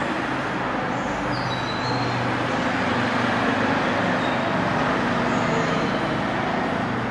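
Steady road traffic noise: an even hiss with the low hum of vehicle engines coming and going.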